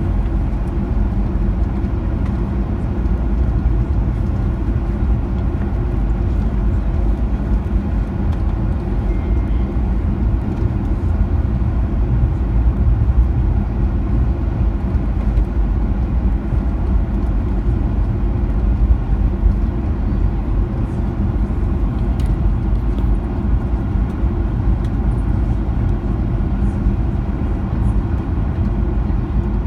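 Steady low rumble inside the cabin of a Boeing 737-900ER taxiing, its CFM56-7B engines running.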